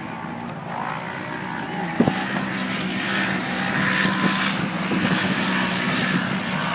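Off-road race vehicle engine running hard, its note holding a steady pitch through most of the stretch, with a sharp knock about two seconds in.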